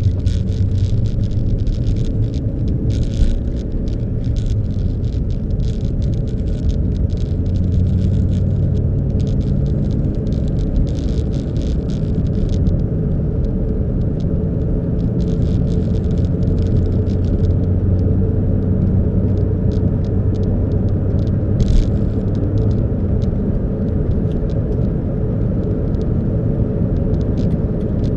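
Car driving along: a steady engine and road rumble with a low hum, and many short crackles and ticks, thick in the first half and sparser later.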